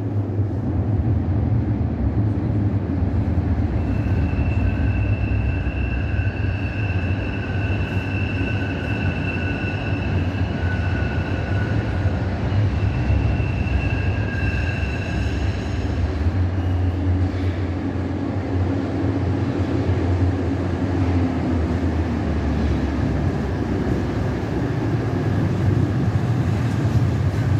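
Steady low rumble of an underground tram station, with tram wheels squealing in the tunnel in high drawn-out tones from about four to sixteen seconds in. A tram runs in toward the platform near the end.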